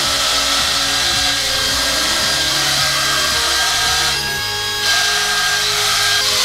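Wall-climbing RC stunt car's suction fan running with a steady high whir, holding the toy against the wall as it drives. The whir briefly drops about four seconds in.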